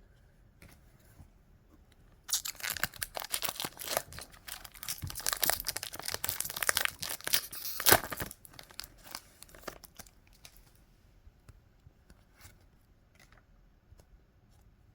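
Foil Pokemon booster pack wrapper being torn open and crinkled, a run of crackling and tearing for about six seconds with its loudest rip near the end, followed by a few light handling clicks.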